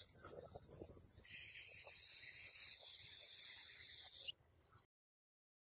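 Airbrush spraying: a steady hiss of air and spray, growing fuller about a second in, then cutting off abruptly about four seconds in. Faint small knocks of handling sit under it.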